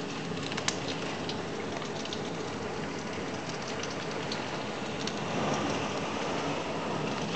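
Heavy rain driven by Hurricane Ivan's winds: a steady rush with many scattered drop ticks and one sharp tap just under a second in, swelling louder about five seconds in.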